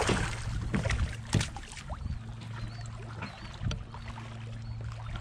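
Choppy water lapping and slapping against a kayak hull, with several short splashes and knocks over a low steady hum.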